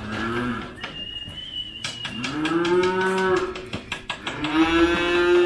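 Calves in a herd mooing: three calls, a short one first, then a longer one that rises in pitch, then the loudest, held steady near the end.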